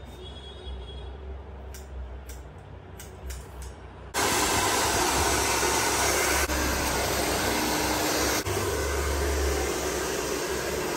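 A low rumble, then about four seconds in a loud, steady rush of air noise starts abruptly and runs on, like a blower or hair dryer running.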